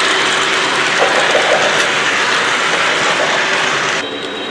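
Lionel O-gauge freight cars rolling over a model truss bridge close by: a loud, steady rushing of metal wheels on three-rail track with faint clicks. It cuts off suddenly about four seconds in.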